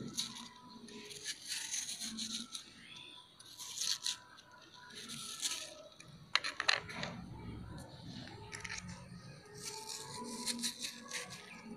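Kitchen knife cutting through watermelon flesh and rind on a plastic cutting board, in a series of short slicing strokes with pauses between them. A few sharp knocks of the blade against the board come about halfway through.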